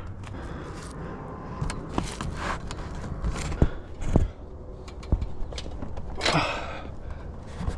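Scattered knocks and scrapes, with short rustles of cardboard packaging, as a heavy cardboard-wrapped garage door section is handled and lifted down.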